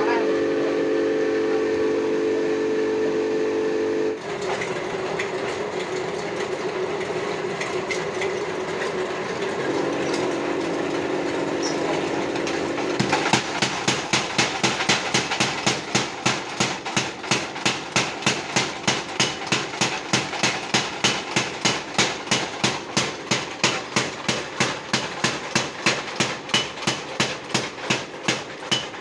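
Mechanical power hammer: the machine runs with a steady hum for the first dozen seconds, then its ram begins striking at about two and a half blows a second and keeps up the steady rhythm.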